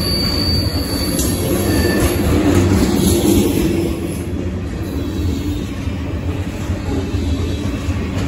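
Covered hopper cars of a Canadian Pacific freight train rolling past close by: a steady rumble of steel wheels on rail, with a thin high wheel squeal in the first second or so and a few sharp wheel clacks near the end.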